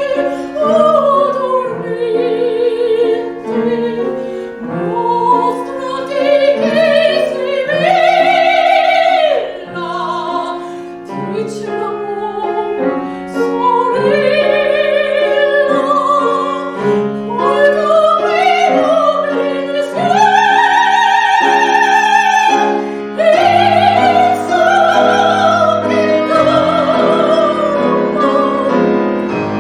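A classical soprano singing with wide vibrato and long held high notes, accompanied by piano.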